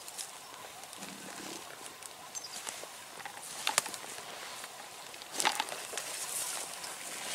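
A rutting fallow buck croaking, a low guttural groan about a second in. Rustling scrub throughout, with two sharp snaps, the loudest sounds, a little before the middle and again later.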